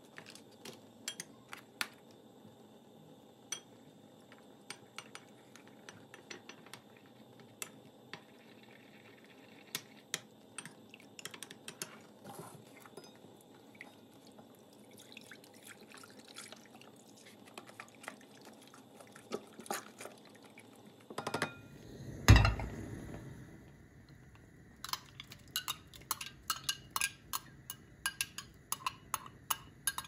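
Kitchen utensil sounds: a metal spoon clicking against a small glass bowl as starch is spooned in, then milk pouring from a carton into a non-stick pot. About two-thirds of the way in a loud thud is heard, the pot set down on the glass cooktop, followed by fast, repeated clinking of a metal spoon stirring starch and milk in the glass bowl.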